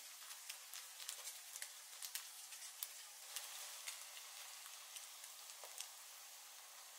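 Faint sizzling of food frying in oil in a pan, with many small crackles and pops that thin out toward the end.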